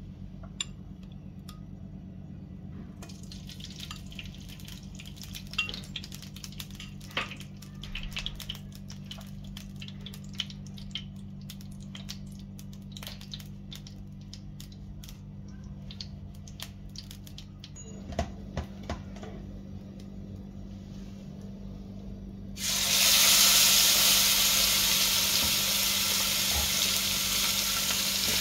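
Scattered faint crackles and clicks over a low steady hum, then about 22 seconds in a loud, steady sizzle starts abruptly as marinated chicken goes onto the hot, oiled plate of a double-sided grill pan.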